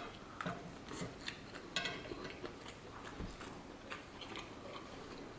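A person chewing food, with scattered small clicks and taps.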